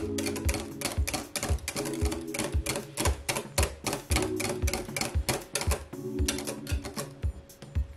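Wire whisk clicking rapidly and irregularly against a glass mixing bowl as batter is whisked by hand, over background music with a steady beat.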